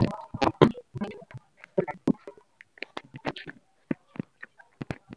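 Boys' voices talking and calling out in short, broken bits, with a few short knocks near the end.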